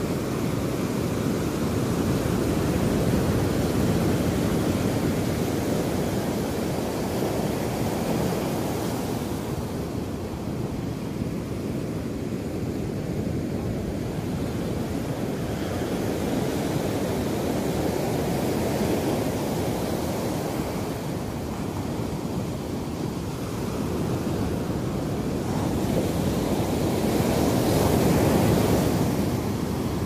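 Small ocean surf breaking and washing over a shallow beach: a steady low rush that swells and eases every several seconds, with a brighter, hissing wash near the end.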